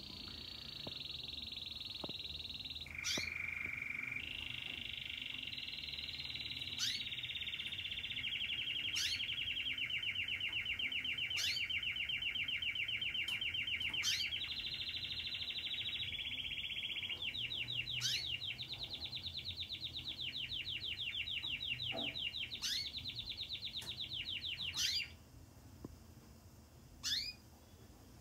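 Domestic canary singing one long, unbroken song of fast rolling trills, with sharp high notes sliding downward every second or two. The song stops about 25 seconds in, and a couple of single calls follow.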